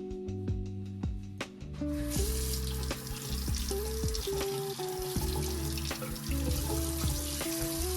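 Background music with a melody and bass line, joined about two seconds in by a steady rushing noise that runs on to the end.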